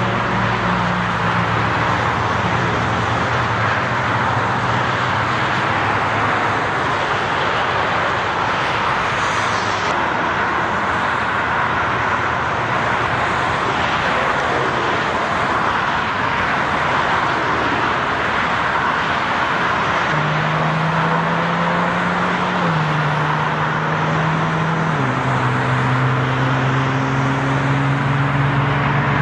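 Steady roar of freeway traffic, the tyre and engine noise of vehicles passing on the open lanes. A low engine hum is heard underneath at the start and again over the last ten seconds, where it shifts in pitch in steps.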